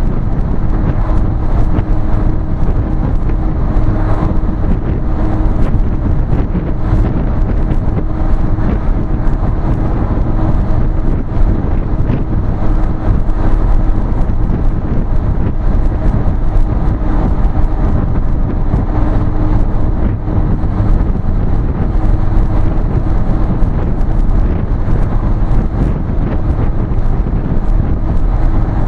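A vehicle driving at highway speed: steady engine and road noise with a constant low hum.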